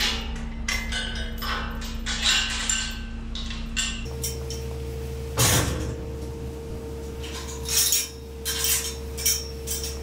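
Scattered metallic clanks and clinks over a steady low mechanical hum. The hum changes abruptly about four seconds in, and the loudest knock comes soon after.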